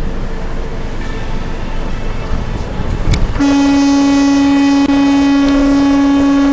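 Vehicle rumble, then a little over three seconds in a horn blasts one loud, steady note that holds to the end.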